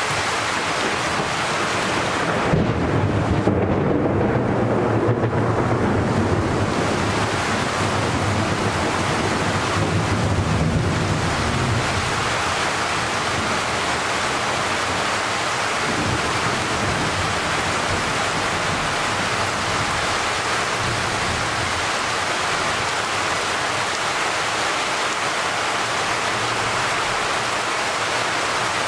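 Steady rain falling in a tropical thunderstorm, with a long low roll of thunder rumbling through it a few seconds in and fading out after several seconds.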